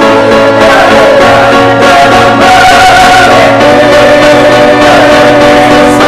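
Mixed choir of men and women singing loudly in several parts, holding long chords that move to new ones every second or so.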